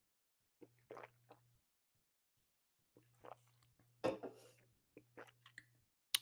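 A man drinking from an aluminium drink can: soft sips and swallows, then a knock about four seconds in as the can is put down, and a sharp click near the end.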